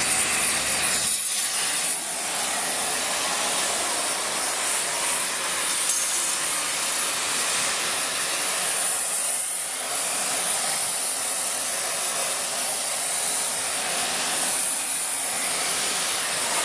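Gas preheating torch burning with a steady loud hiss as it heats the rail ends in the mould for thermite rail welding. About a second in, the sound loses its low end and goes on as a thinner hiss.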